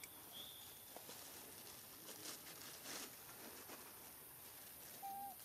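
Faint scattered clicks and patter from a baby macaque chewing and picking at wet duckweed, with two short high chirps near the start and a brief whistled note near the end.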